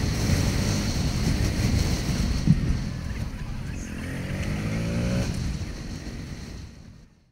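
Motorcycle engine running while riding along a street, with wind rushing over the microphone and a brief knock about two and a half seconds in. The engine revs up around four seconds in, and then the sound fades out near the end.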